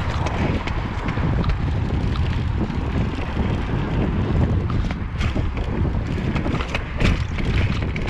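Mountain bike rolling fast over a dirt singletrack: tyre noise and the clatter of the bike over bumps, with a few sharper knocks about five and seven seconds in. Wind buffets the action camera's microphone throughout.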